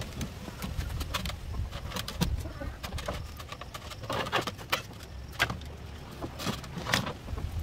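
Bamboo cage panels clattering and knocking as they are stood up and shifted on a bamboo pole, about seven separate knocks, with birds calling in the background.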